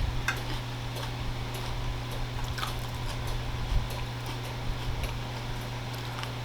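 A person chewing food with soft, scattered mouth clicks and smacks, over a steady low hum.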